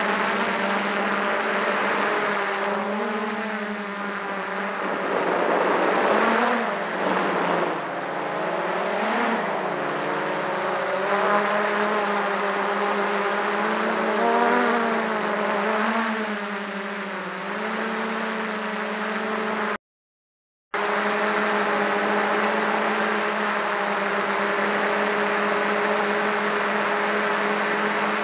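Quadcopter's electric motors and propellers buzzing in flight, heard from the camera on board, the pitch rising and falling as the throttle changes, over a steady rushing noise. The sound cuts out completely for about a second, two-thirds of the way through.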